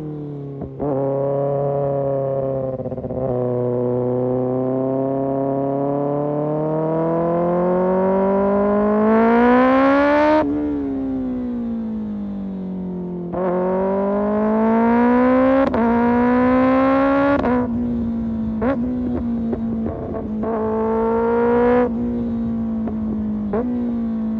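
Kawasaki ZX-6R sport bike's inline-four engine through an Arrow Pro Race exhaust, heard from the rider's seat. It makes one long rising pull, eases off with a falling note, then revs up hard again. Near the end the note holds high, broken several times by short sharp breaks.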